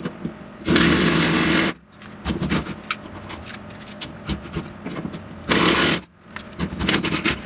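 Power drill driving jack nuts into a sheet-metal frame to set them, running in short bursts: about a second long near the start and a shorter one about five and a half seconds in. Small clicks and rattles of the tool and nut come in between.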